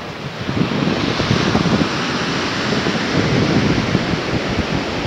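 Wind buffeting the microphone over the wash of surf breaking on a sandy beach, the wind noise growing louder about half a second in.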